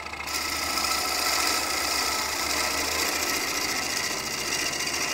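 Bowl gouge cutting the inside of a spinning wooden bowl on a wood lathe: a steady hiss of wood being cut and shavings coming off, over the low hum of the lathe. The gouge is moving slowly toward the slow-turning centre so the edge cuts the fibres cleanly instead of tearing them.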